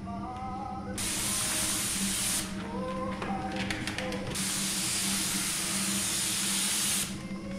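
Gravity-feed paint spray gun on compressed air, hissing in bursts as the trigger is pulled and released. The first spray starts about a second in and lasts about a second and a half; a longer one of about three seconds follows from the middle. A steady low hum runs underneath.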